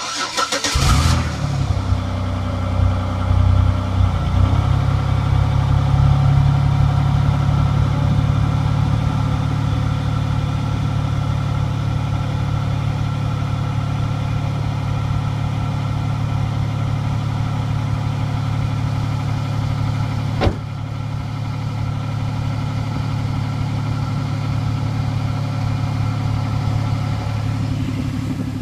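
A 2004 Chevrolet Monte Carlo SS's 3800 Series II V6 starting from cold: it fires at once, runs unevenly for about four seconds, then settles into a steady cold idle. A single sharp click comes about twenty seconds in, after which the engine runs a little quieter.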